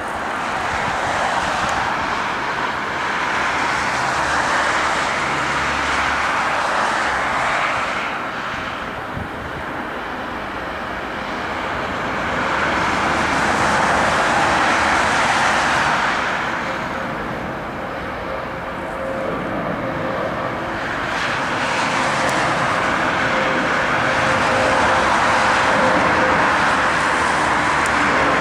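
Airbus A350's twin Rolls-Royce Trent XWB turbofan engines at climb-out after takeoff: a continuous jet roar that swells and eases in slow waves as the airliner passes. It grows loudest as it comes nearly overhead, and a steady hum joins in near the end.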